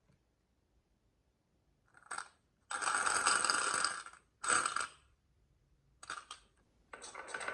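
Marbles rolling and clattering along a marble-run track, in several runs with short gaps, starting about two seconds in; a longer steady run begins near the end.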